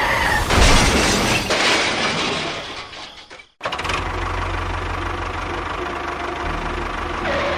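Engine running: a loud, clattering stretch for about three seconds, then a sudden cut, then a steady low engine hum.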